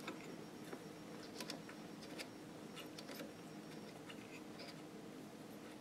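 Faint scattered clicks and scratchy scrapes of fingers working a thumb screw into a CPU water block's mounting hardware on a motherboard.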